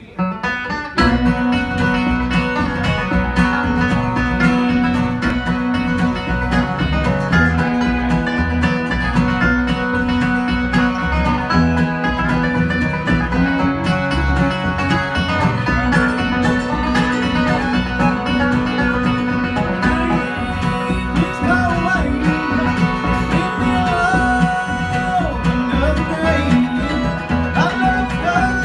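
Live bluegrass band of banjo, mandolin, fiddle, acoustic guitar and upright bass, playing with a steady bass beat. In the last several seconds the fiddle slides between notes.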